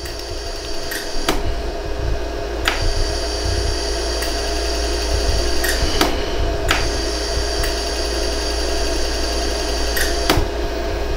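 LaserStar jewelry laser welder running with a steady machine hum, broken by about six sharp ticks of single laser pulses, spread unevenly, as thin filler wire is fused into a hole in a hollow gold earring.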